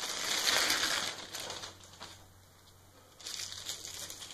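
Clear plastic packaging bag crinkling as a hand blender is pulled out of it. The crinkling runs for about two seconds, stops for about a second, then starts again near the end.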